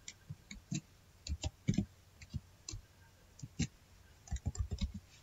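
Computer keyboard being typed on: irregular single key clicks, with a quick run of keystrokes near the end.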